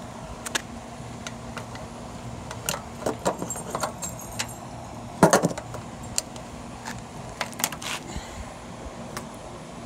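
Ironton 1800-watt portable generator's single-cylinder OHV gasoline engine running at a steady hum. Over it come a series of sharp clicks and light metallic rattles, the loudest a clunk about five seconds in.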